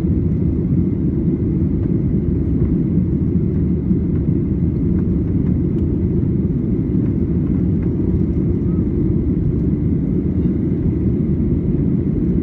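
Steady low rumble of a jet airliner's engines and rushing air, heard from inside the passenger cabin during the climb after takeoff.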